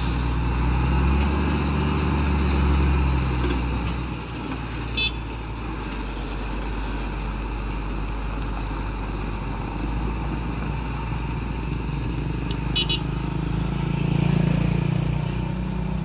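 Heavy diesel engine of a Scania lowboy truck running as the loaded rig moves off, its note swelling over the first few seconds and again near the end, with a couple of short clicks in between.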